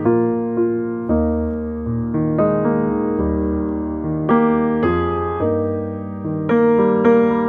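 Background music: a slow piece of struck chords, a new chord about every second, each ringing and fading before the next.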